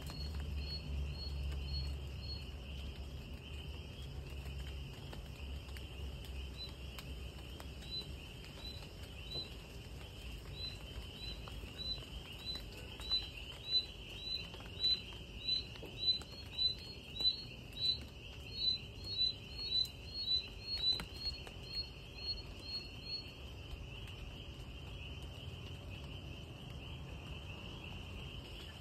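Night insect chorus: a steady high-pitched trill, joined from about seven seconds in by a louder chirp repeated about twice a second, which swells and then stops a little after twenty-three seconds in.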